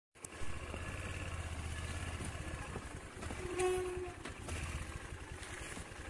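Steady low hum of a motor vehicle's engine running, with a brief pitched tone about three and a half seconds in.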